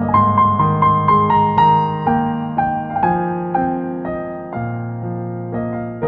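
Background piano music: a slow melody of single struck notes, each fading, over sustained low chords. The notes come quickly in the first second, then more slowly, and the melody drifts downward in pitch.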